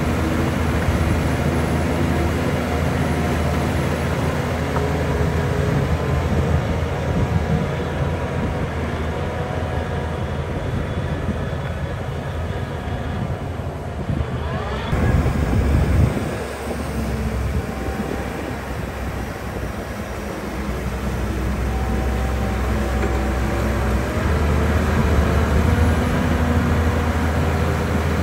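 Heavy diesel engine of earthmoving machinery, a bulldozer or dump truck, running steadily with a low drone and a brief louder swell around the middle.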